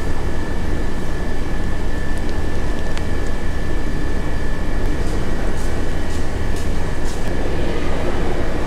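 Steady loud mechanical rumble with a thin high whine running through it, and a few faint crinkles of a paper wrapper being handled in the middle.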